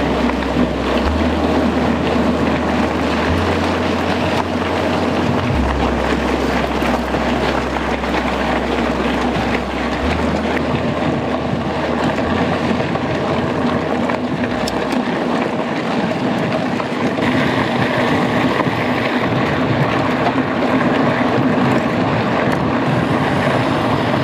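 Steady rush of wind over an action camera's microphone mixed with tyre and drivetrain noise from a mountain bike ridden fast on a dirt trail. A low humming tone steps between pitches about every two seconds for roughly the first twelve seconds, then fades out.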